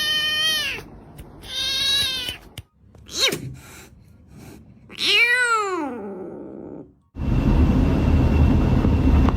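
A cat meowing four times: two long calls, a short one, then one that rises and falls in pitch. About seven seconds in, the meows give way abruptly to a loud steady rushing noise.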